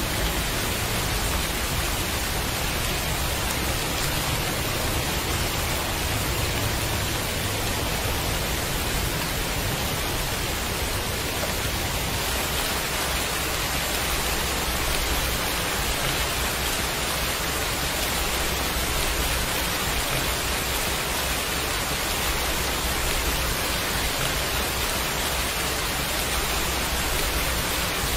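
Heavy rain falling steadily: a dense, even hiss with no single drops or pauses standing out.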